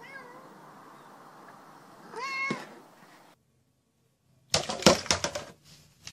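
A cat meows twice: a short faint meow at the start, then a louder, longer meow about two seconds in. After a short silence, a burst of loud clattering knocks about four and a half seconds in, as a plastic bottle is knocked over.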